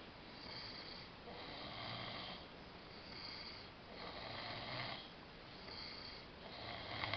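A drunk man snoring in his sleep, snore after snore at about one a second, each a rasping breath.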